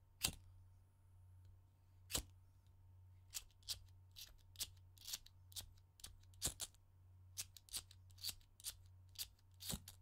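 A disposable lighter being struck over and over with the thumb, a series of sharp clicks: two about two seconds apart, then a quicker run of roughly two to three a second.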